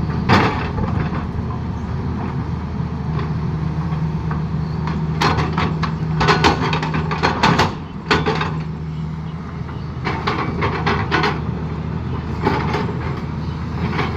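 Excavator's diesel engine running steadily, with clusters of sharp metallic clanks and knocks as it works, the busiest stretch in the middle.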